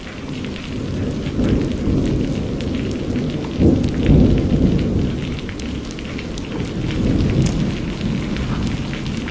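Steady rain with scattered drops ticking, under a long roll of thunder that builds about a second in, is loudest near the middle, and rumbles on with a second swell later.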